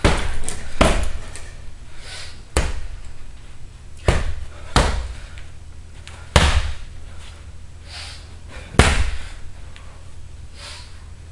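Punches and kicks landing on a hanging heavy punching bag: about seven hard thuds at irregular intervals, further apart toward the end.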